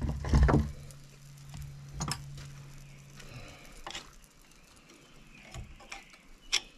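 Scattered metal clicks and taps as the freshly torch-cut bearing retainer on a Jeep axle shaft is handled, with a low steady hum that stops about three seconds in.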